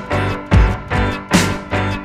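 Background music with a steady, driving drum beat over sustained chords.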